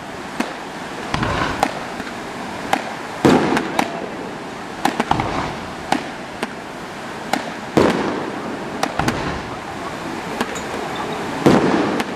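Fireworks display: aerial shells bursting with several deep, echoing booms, the heaviest about three seconds in, about eight seconds in and near the end, amid many sharp cracks and pops.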